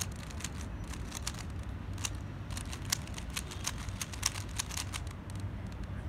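A plastic 3x3 Rubik's cube being turned rapidly by hand in a speedsolve: its layers click in quick, irregular runs that stop about five seconds in, as the solve nears its finish. A steady low hum sits underneath.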